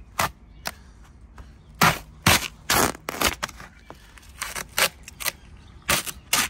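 Peel ply being ripped off a cured epoxy deck repair: about a dozen short tearing pulls at uneven intervals, one a little longer than the rest.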